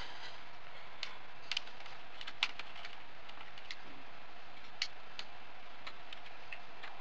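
Scattered light clicks and ticks of a hex wrench and small screws as a motor's mounting screws are undone, over a steady hiss.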